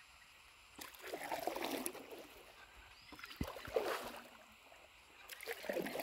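Paddle strokes dipping and pulling through calm river water: three splashy swishes about two seconds apart, the first about a second in.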